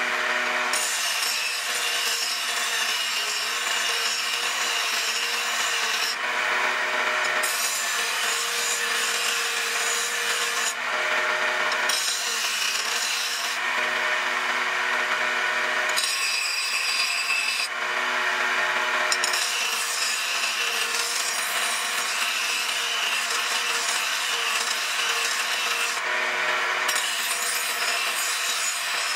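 Bench grinder's abrasive wheel grinding a steel knife blade: a steady rasping hiss over the motor's hum. The rasp breaks off several times for a second or two when the blade is lifted off the wheel, leaving only the spinning wheel's whir.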